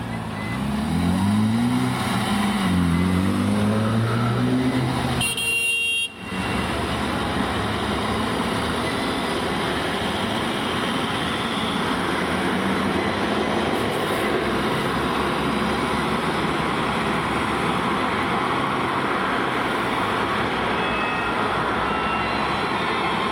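Loud street traffic noise. In the first few seconds a low engine-like pitch rises and falls. About six seconds in the sound briefly cuts out, then a steady traffic din continues.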